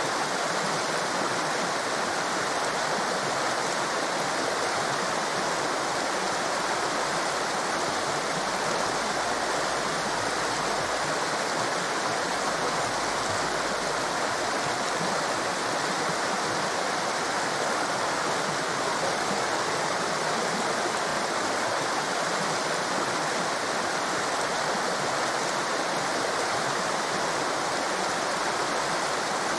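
Torrent of rushing water, a steady, unbroken roar of whitewater with no change in level.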